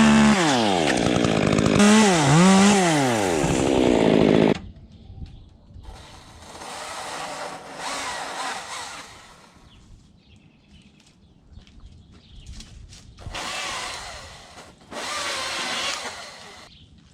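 Chainsaw revving loudly for about four and a half seconds, its pitch falling, rising and falling again, before it cuts off. After that, quieter bursts of chainsaw cutting come from further off.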